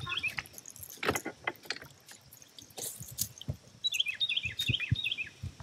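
Scattered knocks, drips and light rattles as a hooked bass is lifted from the water and swung aboard a bass boat, flopping against the deck. About four seconds in, a bird sings a quick run of high chirps.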